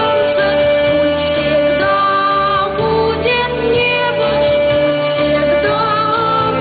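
Choir singing over instrumental accompaniment, with one long held note through most of it.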